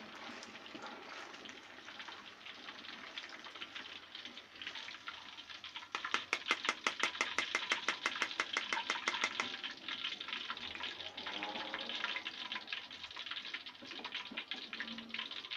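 Hot oil in a wok sizzling and crackling as deep-fried tofu is lifted out with a wire-mesh strainer. The crackle gets denser about six seconds in and eases off after about nine and a half seconds.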